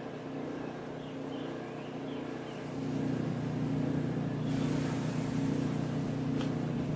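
Water hissing and sizzling on hot forged steel, starting about two seconds in and louder from about halfway, over the steady hum of the forge.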